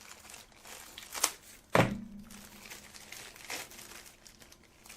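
Rustling and plastic clicks from handling a Roomba's dust bin and filter, with a sharp knock a little under two seconds in that rings briefly.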